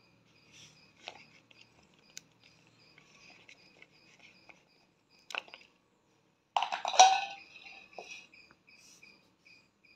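Thibbatu (turkey berries) being plucked off their woody stems by hand in a plastic basin: scattered soft snaps and rustles, with a louder rustling crackle about seven seconds in.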